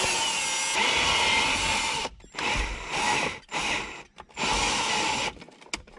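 Ryobi cordless drill boring a hole in a car's center console panel, its motor whining. It runs for about two seconds, then in a few shorter bursts as the trigger is pulled and let go.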